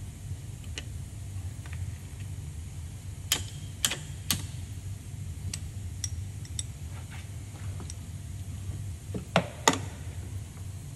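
Sharp knocks of a metal tool being tapped in a diesel injector bore to grip and pull out the old copper injector seal: three in quick succession about three seconds in, then two more near the end.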